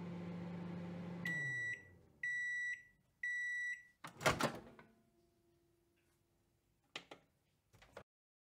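Microwave oven running with a steady hum that winds down about a second in, then three beeps about a second apart as its timer reaches zero. The door then opens with a short noisy burst, the loudest sound, and two short clicks follow near the end.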